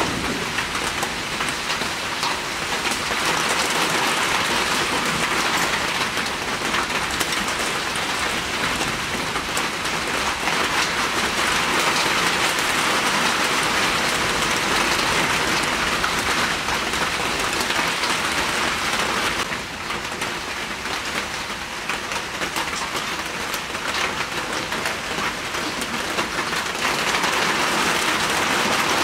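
Steady heavy rain falling and pattering on hard surfaces, easing slightly for a few seconds about two-thirds of the way through.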